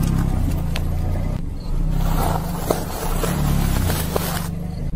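A car creeping forward with its engine running low and steady while the tyre rolls over and crushes objects on asphalt, with several sharp crackles and crunches scattered through it.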